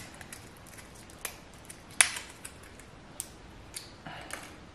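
Light clicks and crackles of a clear plastic blister pack being picked apart by hand, with one sharper click about two seconds in.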